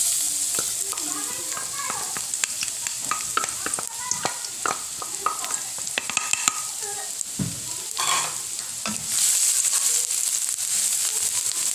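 Chopped garlic sizzling in hot cooking oil in a pan, starting suddenly as it goes in: a steady hiss full of small crackling pops. It is stirred with a wooden spatula near the end, with a low knock shortly before and the sizzle growing louder.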